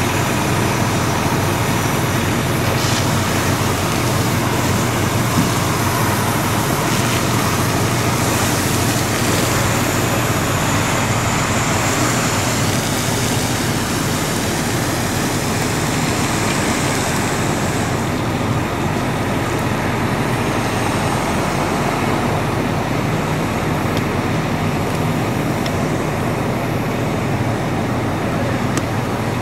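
Fire engine's diesel running steadily to drive its pump, under the hiss of a fire hose spraying water onto a smouldering dumpster. The spray and steam hiss grows louder about a third of the way in and eases off past the middle.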